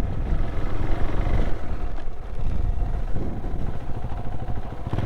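Motorcycle engine running steadily, with wind and road rumble on the microphone.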